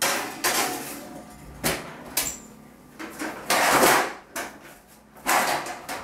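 Kitchen clatter as a cake pan goes into the oven: about half a dozen sharp knocks and clunks from the oven door and pan, with a longer rattling scrape a little past halfway.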